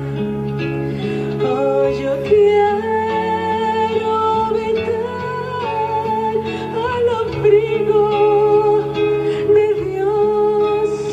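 Live band music in a slow worship song: an instrumental passage with a wavering lead melody over sustained chords and bass, plausibly with guitar in the mix.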